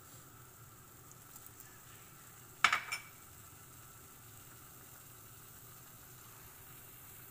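A short clatter of three quick knocks against a metal cooking pot about two and a half seconds in, as sliced tomatoes go in on top of the raw pork, over a faint steady hiss.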